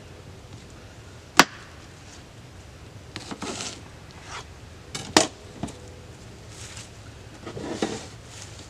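Kitchen knife cutting an onion into wedges on a cutting board: two sharp knocks of the blade hitting the board, about a second and a half in and about five seconds in, with softer slicing sounds between them.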